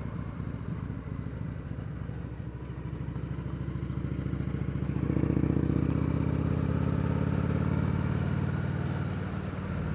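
Victory Vegas V-twin motorcycle engine running under way, building in loudness and pitch for a few seconds as it accelerates, then holding steady near the end.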